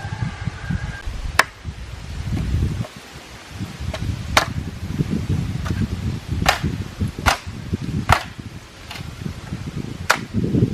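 A tool striking wood: about seven sharp blows at irregular intervals roughly a second apart, over a low rumbling background.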